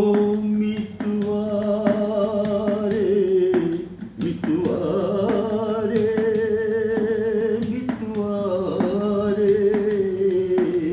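A man singing solo in long held notes with a wavering vibrato, in three phrases broken by short pauses for breath.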